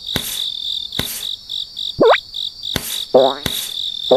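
Cartoon sound effects: a high tone pulsing about three times a second over sharp clicks, a quick rising whistle about two seconds in, and warbling squeaky calls near the end.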